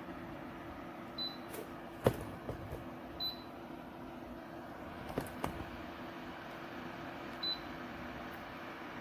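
Ceramic fan heater's fan running with a steady hum. Three short high beeps are heard, and several sharp clicks.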